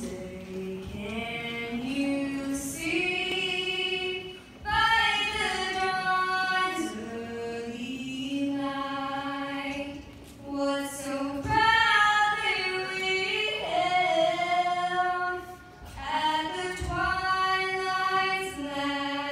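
A young female singer sings the national anthem solo and unaccompanied into a handheld microphone. She holds long sustained notes in phrases, with short breaths between them about a quarter, a half and four-fifths of the way through.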